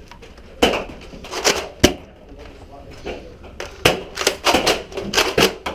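Foam-dart blasters firing and darts hitting things: about ten sharp, irregular pops and clacks, the loudest a little under two seconds in and a quick run of them in the last two seconds.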